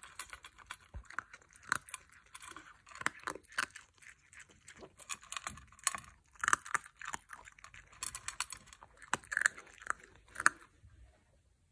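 Basenji dog crunching dry kibble from a stainless steel bowl: irregular crunches and clicks that stop about ten and a half seconds in.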